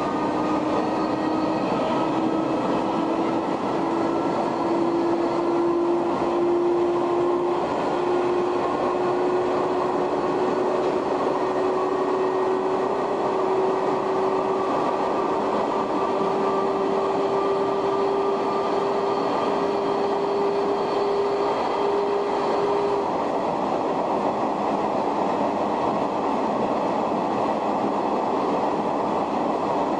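Shin-Keisei 500-series electric car's nose-suspended traction motors whining under the steady rumble of wheels on rail. The whine rises slowly in pitch as the train gathers speed, then cuts off about three-quarters of the way through while the running noise carries on.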